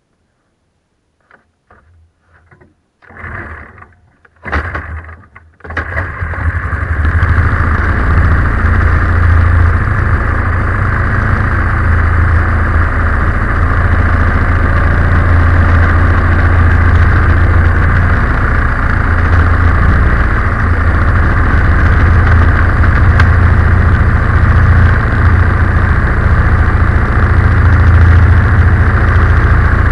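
Predator 212cc single-cylinder four-stroke inboard engine starting: a few faint clicks and two short bursts of cranking, then it catches about six seconds in and idles steadily.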